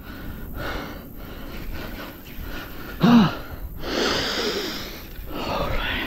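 A man breathing hard and panting, out of breath from heavy exertion, with a short voiced grunt about three seconds in and a loud, longer breath about a second after it.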